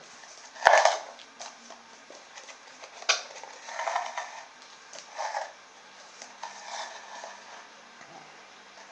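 Paper coffee cup noise maker: knotted string pulled through a hole in the cup's base, each knot jerking through the hole with a sharp click and a short squawk that the cup makes louder. It sounds several times at uneven spacing, the loudest just under a second in.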